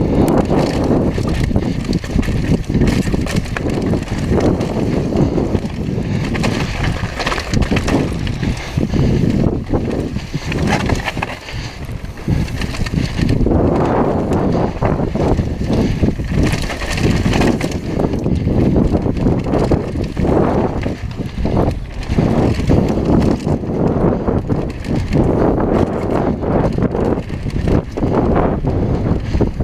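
Downhill mountain bike running fast over a dirt and gravel trail: tyres scrabbling on loose ground and the bike rattling and knocking over bumps continuously, with wind rumbling on the microphone.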